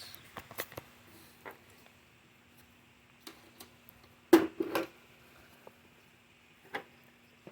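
Handling noises from small parts and tools: scattered light clicks and knocks, the loudest a sharp knock about four seconds in, over a faint steady hum.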